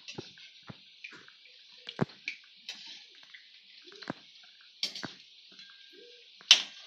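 Thekua dough pieces deep-frying in hot oil in a metal kadai on a low flame: a steady sizzle of bubbling oil, with sharp clinks of a metal slotted spoon against the pan about six times, the loudest near the end.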